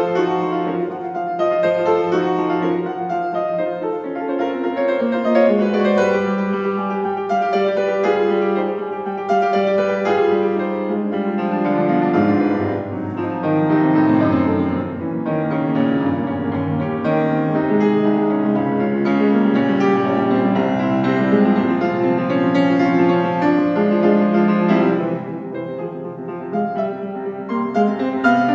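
Solo Bohemia grand piano playing a classical piece in dense, continuous runs and chords, becoming quieter near the end.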